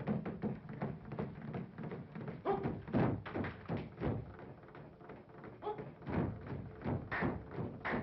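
Cartoon soundtrack of drum thumps and knocks beaten a few to the second, with a couple of brief pitched calls in between.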